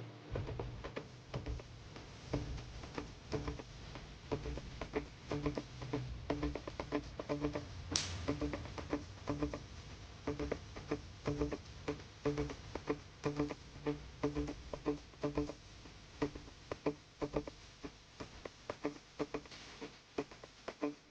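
Background music: a plucked-string instrumental of short, evenly repeating notes, over a low rumble during the first half and a single brief whoosh about eight seconds in.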